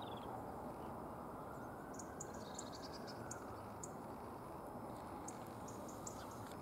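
Faint chirps and brief twittering of small birds, a few scattered calls, over a steady low background hiss of outdoor ambience.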